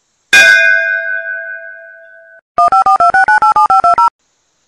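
A single bell-like ding that rings on and fades, cut off after about two seconds. It is followed by a quick electronic chime tune of about a dozen short two-note beeps stepping up and down in pitch, added sound effects.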